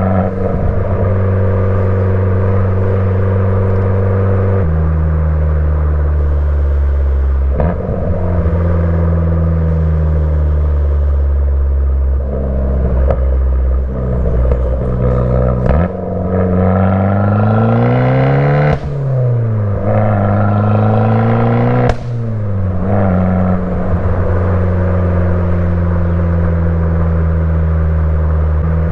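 Fiat 500 Abarth's 1.4-litre turbocharged four-cylinder engine running through an MPx cat-back exhaust while driving. It holds mostly steady revs with a few step changes in pitch. About halfway in it revs up in a long rise that cuts off sharply, rises and falls once more, then settles back to a steady drone.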